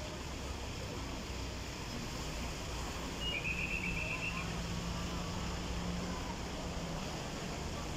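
Outdoor traffic noise: a low, steady engine hum under a wash of noise, with a short high trill about three seconds in.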